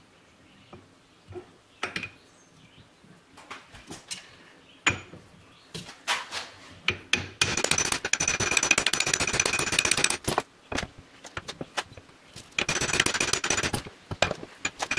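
A U-joint yoke being pressed into a ball bearing in a machined aluminium adapter housing with a bench vise: scattered metal clicks and taps as the parts are set in place, then two long stretches of dense, rapid metallic rattling and grinding as the vise drives the yoke home.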